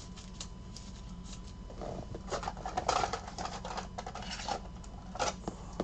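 Baseball card being slid into a soft plastic penny sleeve and then into a rigid plastic top loader: light plastic rustling and scraping with small clicks, bunched in the middle with one last scrape near the end.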